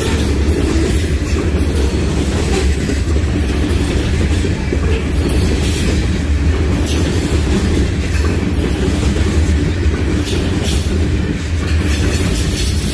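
Norfolk Southern freight train rolling past: a steady, loud rumble from the cars, with the clack of wheels over rail joints.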